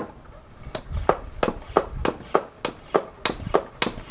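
Hand-operated vacuum oil-change pump being worked up and down quickly, a sharp clack on every stroke at about three a second, starting under a second in. The strokes build suction to draw the engine oil up the dipstick tube out of a four-stroke outboard's oil pan.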